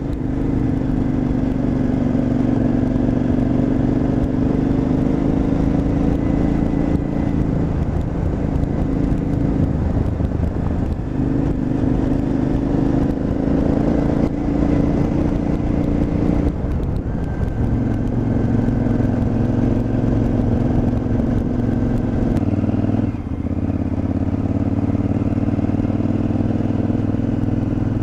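KTM 950 Adventure's V-twin engine running under way on a dirt track. The engine note holds steady, then changes pitch a few times: about ten, sixteen and twenty-three seconds in.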